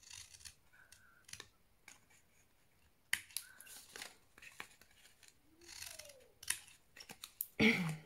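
Scissors snipping cardstock in a series of short, sharp cuts as glue tabs are mitered. Near the end comes a loud man's shout.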